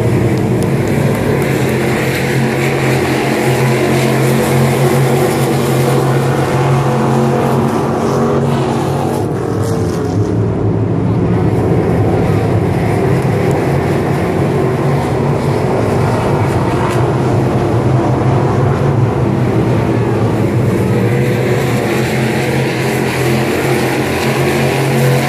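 A field of dirt-track Crate Sportsman race cars running laps, their crate V8 engines blending into a continuous loud drone, easing off slightly about ten seconds in.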